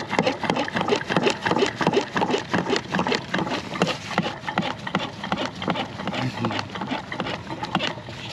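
Gasoline gurgling and splashing as it is pumped by hand into a Jeep Wrangler's fuel tank: a dense, irregular run of wet clicks and splashes that stops at the very end.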